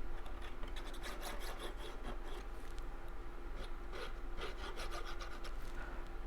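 Cardstock being handled and rubbed against the work surface: a run of short, irregular scratchy rustles.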